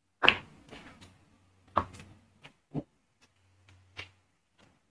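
A few sharp knocks and taps at irregular intervals, the loudest near the start and just under two seconds in, with quiet between them.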